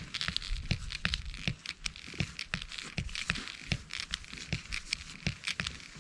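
Camping gear being handled: crinkling and rustling with many small, irregular clicks and taps.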